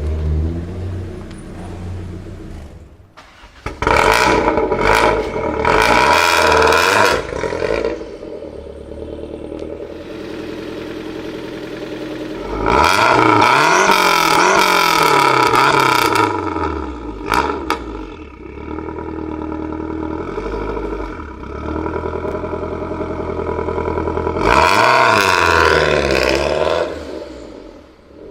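High-performance car engines revved hard three times, each rev rising and falling in pitch, with the engine running at a steady lower idle in between.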